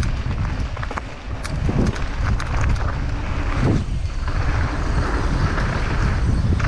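Wind buffeting a helmet-mounted action camera's microphone as a downhill mountain bike rolls down a dirt trail, with tyre noise and scattered knocks and rattles from the bike. A hissier rush joins about four seconds in.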